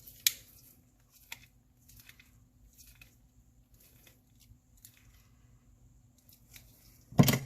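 A small diecast model car being handled: a sharp click just after the start, a few faint ticks and taps, and a louder knock shortly before the end.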